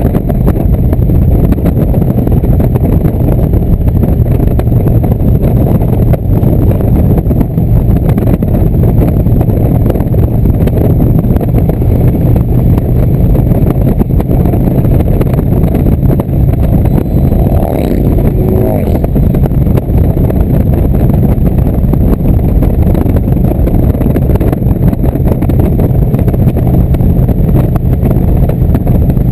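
Indian cruiser motorcycle's V-twin engine running at a steady cruising speed, mixed with heavy wind rumble on the rider-mounted microphone.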